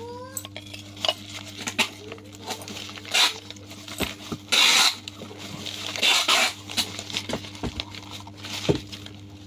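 Packaging being handled and torn open while drinking glasses are unboxed: repeated bursts of rustling and tearing with scattered sharp clicks and knocks, over a steady low hum.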